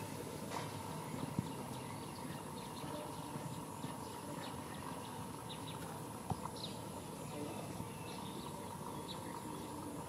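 Outdoor ambience: a steady hiss and hum, with faint short high chirps scattered through it and a few soft clicks.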